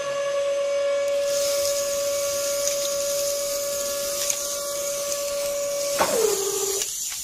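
Small electric geared motor whining steadily as it tips a miniature tractor trolley's bed, with a high hiss of small stones sliding out of it from about a second in. Near the end the whine drops in pitch and then stops.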